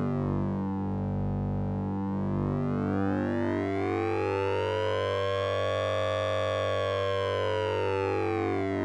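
Synthesizer sound effect using oscillator sync and ring modulation: bright overtones sweep down, climb slowly to a peak about six seconds in and fall again near the end, over a steady low drone and a shifting pattern of short mid-pitched tones.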